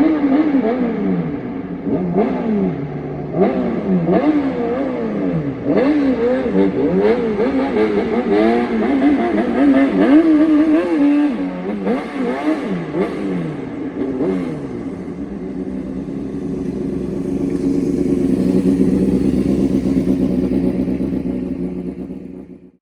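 Honda Jade 250's inline-four engine through an open 4-2-1 exhaust, revved in a rhythmic "call": quick throttle blips that rise and fall in pitch one after another. For the last several seconds it holds a steadier note that swells, then cuts off at the very end.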